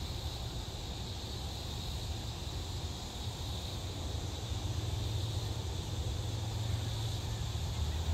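Outdoor storm ambience: a steady low rumble with an even, high insect chorus over it.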